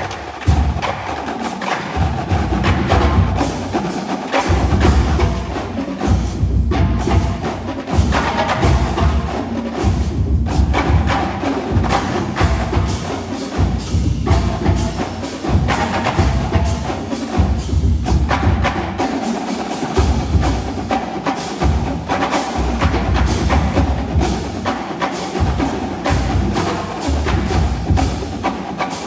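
Marching drumline playing together: dense, rapid snare and tenor drum strokes over bass drum hits that come and go in bursts.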